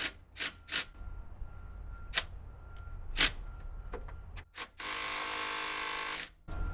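A few sharp metallic clicks and knocks of a socket and extension being fitted, then an impact gun hammering on a motor mount bolt for about a second and a half near the end. The bolt does not turn: this gun is not strong enough to break it loose.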